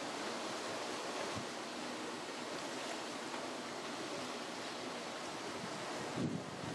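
Sea waves washing and breaking over a flat rock ledge: a steady rush of surf. Wind buffets the microphone, with a louder gust near the end.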